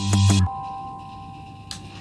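Background music: a bass-heavy beat that breaks off about half a second in, leaving a couple of quiet held tones that fade away.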